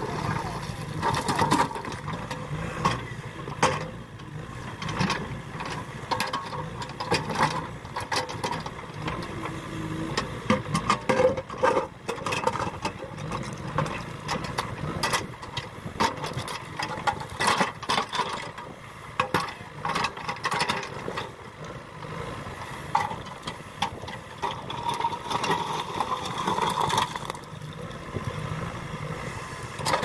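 JCB 3DX backhoe loader's diesel engine running under load while the backhoe bucket pushes and scrapes through a pile of broken rock. Stones knock and clatter against each other and the bucket again and again.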